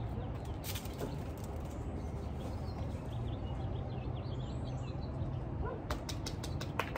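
Outdoor backyard ambience: small birds chirping faintly over a steady low hum. A few sharp clicks come near the end.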